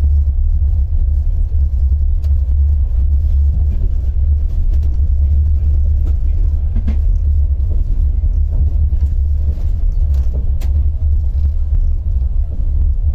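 Steady low rumble of a moving passenger train heard inside an open-plan sleeper car, with a few faint clicks now and then.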